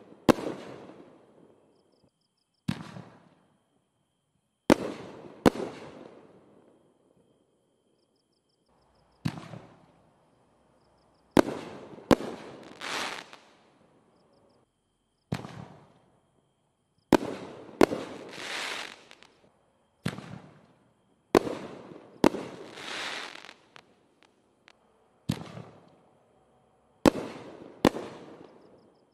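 Pack'n Heat 6-inch double-break canister aerial shells going off one after another, sharp bangs every one to four seconds, many in close pairs as each shell's two breaks burst. Every bang rolls away in an echoing tail, and some breaks are followed by a longer rushing, crackling tail.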